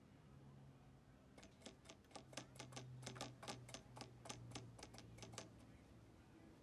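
Faint run of quick, light clicks, about four a second, starting about a second and a half in and stopping after about four seconds, over a low steady hum.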